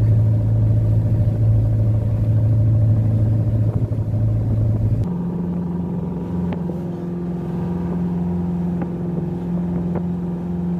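Motor boat's engine running steadily, heard inside the wheelhouse as a low drone that jumps abruptly to a higher, lighter hum about halfway through, with a few faint clicks after the change.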